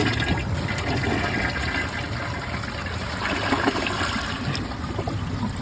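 2018 Mansfield Summit dual-flush toilet flushing: a sharp sound at the start, then a steady rush of water through the bowl as it tries to carry a sock down the drain.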